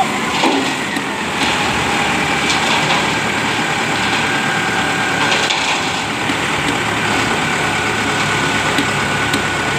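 Self-loading concrete mixer truck's diesel engine running steadily as its drum turns to discharge concrete down the chute, with a faint steady whine above the engine noise.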